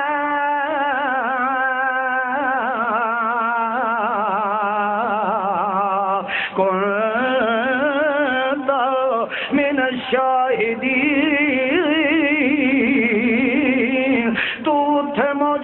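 A man's voice chanting melodically with no instruments. The first phrase is held for about six seconds, then shorter phrases follow with quick wavering ornaments and brief breaths in between. This is the sung, drawn-out delivery of a sermon recitation.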